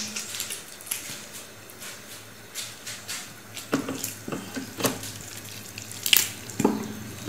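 Boiled chicken being pulled apart by hand on a ceramic plate: irregular small clicks, soft knocks and crackles of meat, bone and fingers against the plate, busier in the second half, over a faint steady hum.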